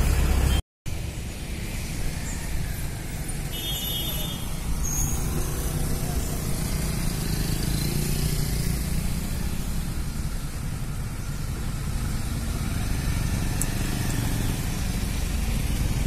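Steady low rumble of a vehicle engine idling, with road traffic, broken by a brief dropout just under a second in.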